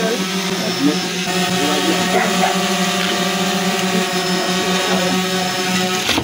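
A steady mechanical hum holding an even pitch throughout, with faint voices from the crowd over it.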